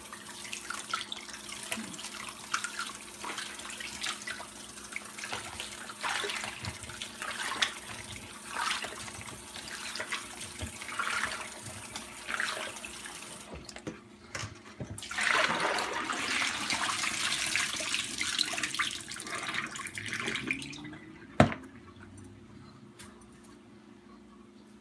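Kitchen tap running into a sink, water splashing and trickling unevenly as something is handled under it, the flow heaviest a little past the middle. Then the water goes quiet and there is a single sharp click near the end.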